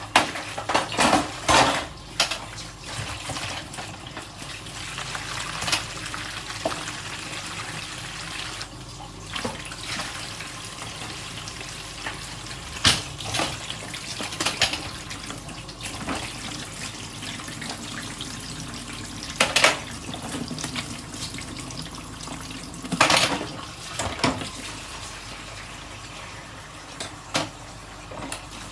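Washing dishes at a sink: a steady stream of tap water, broken by scattered clinks and clatters of dishes and cutlery knocking together, with a cluster of sharp clatters at the start and a few more later.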